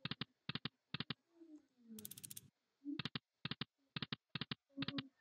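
Online video slot game sound effects: quick runs of sharp clicks as the spinning reels stop one after another, with a brief clattering burst about two seconds in as the next spin starts.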